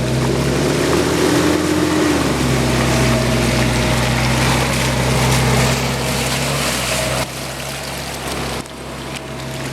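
Off-road SUV engine pulling under load through deep mud, with tyres churning mud and water. The revs climb slightly, ease back about two seconds in, then hold steady.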